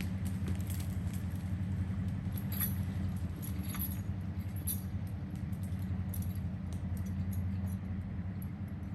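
Vehicle engine running steadily at a low, even pitch while dragging a chained log, with scattered light metallic clinks and rattles over it.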